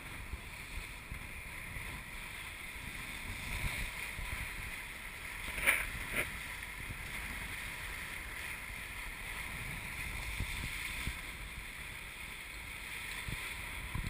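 Water rushing and hissing along the hulls of an EDEL 35 sailing catamaran moving fast through choppy water, with a low rumble of wind on the microphone. Two sharp hits come close together about six seconds in.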